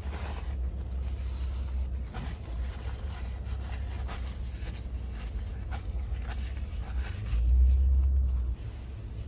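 Steady low rumble, louder for about a second near the end, with faint scattered clicks and rustles over it.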